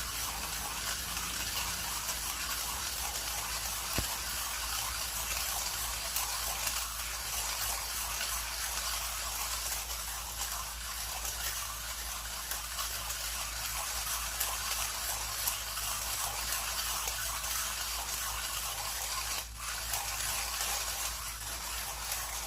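Millwright hand grinder grinding coffee beans at an espresso setting, its burrs making a steady, pleasant grinding noise as the crank is turned, with a brief break about nineteen seconds in.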